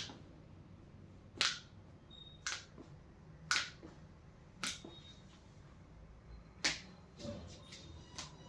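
Joints popping under chiropractic manipulation: a series of sharp cracks, roughly one a second, the first the loudest.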